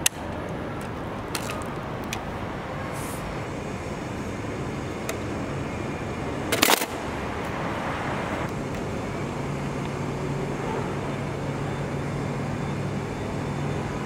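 Graflex Speed Graphic press camera being handled and set up: a sharp metal click at the start, a small click a second or so later, and a loud double clack about halfway through, over steady city traffic noise. A low steady hum comes in during the second half.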